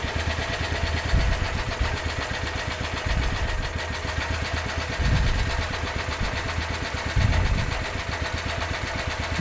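Small generator engine running on HHO (hydrogen-oxygen gas from an electrolyzer), its low rumble swelling about every two seconds, an uneven run; the owner says it is in a very lean condition.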